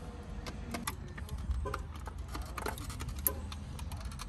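Scattered light clicks and taps of a car's plastic overhead console being handled while its wiring connectors are undone and a screwdriver works on its back, over a low steady rumble.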